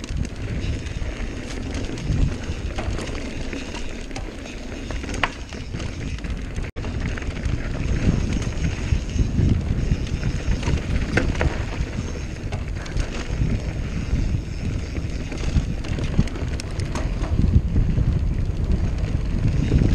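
Santa Cruz Nomad mountain bike rolling fast over dirt singletrack: wind buffeting the handlebar camera's microphone over the tyres on the trail, with scattered clicks and rattles from the bike. The sound cuts out for an instant about a third of the way in.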